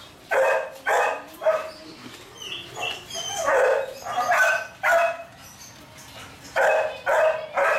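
Belgian Malinois puppies play-barking as they jump at and tug a rag: about nine short, high barks in quick groups of two or three.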